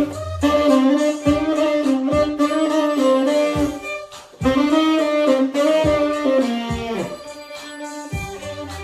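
Saxophone playing a melody alongside a violin, over a steady drum beat. The sax line breaks off briefly about four seconds in, and a note slides down just before seven seconds, after which the music is a little quieter.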